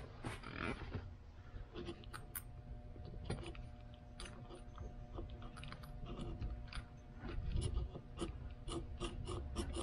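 Scattered small plastic clicks and rubbing as a fuel-injector wiring connector is worked together by hand, its wired terminals being pushed into the housing. A faint steady hum runs underneath.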